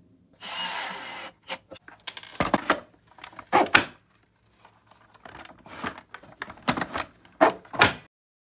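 A short hiss lasting about a second, then a run of hard plastic clacks and clicks, several close together near the end: a Milwaukee Packout organizer being handled and latched onto cleats on a dolly.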